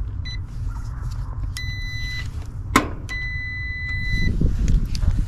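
A clamp meter's continuity beeper sounds as its test leads touch the condenser's low-voltage wiring: a brief beep, then a longer one, a sharp click, and a longer steady beep, all on one high pitch. A steady low rumble runs underneath.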